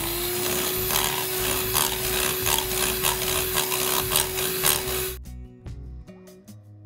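Electric hand mixer running at a steady pitch, its beaters churning an egg into creamed butter and sugar and clicking against the glass bowl. It cuts off suddenly about five seconds in, leaving background music.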